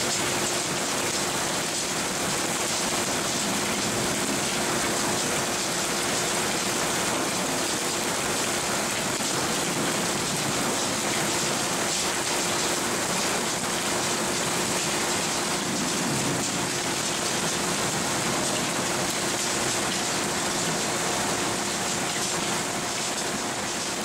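Onion top-tailer machine running: a steady, dense rattle of many onions tumbling across the machine bed, with a steady motor hum underneath.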